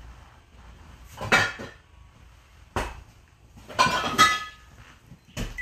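Glass liquor bottles knocking and clinking as a whiskey bottle is pulled out from among others: a handful of separate knocks, one sharp knock near the middle and a cluster of clinks with a short ring a little later.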